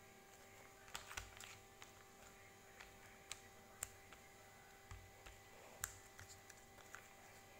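Near silence broken by scattered faint clicks and light taps, about a dozen over several seconds, the sharpest a little before the middle and just past it, from the cough-syrup packaging being handled close to the microphone. A faint steady hum runs underneath.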